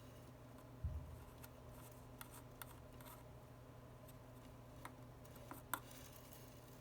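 Faint sharp clicks and small taps of tools and phone parts being handled at a workbench, with one low bump about a second in, over a steady low hum.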